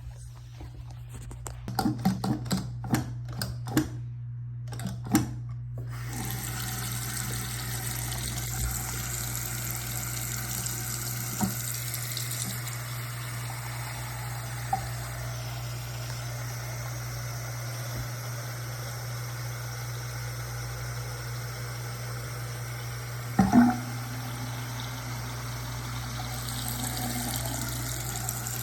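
A handful of sharp clicks and knocks, then a tap running steadily into a sink, with one louder knock near the end. A steady low hum runs underneath.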